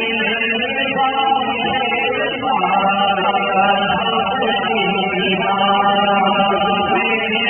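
A man chanting a devotional recitation in long held notes, amplified through a stage microphone and PA.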